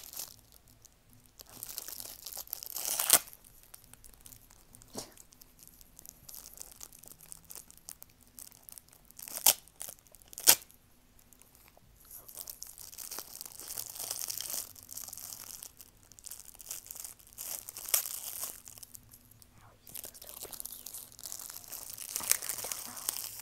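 Plastic cellophane wrapping on a heart-shaped chocolate box being crinkled and torn open by hand, in irregular bursts, with two sharp crackles about nine and a half and ten and a half seconds in.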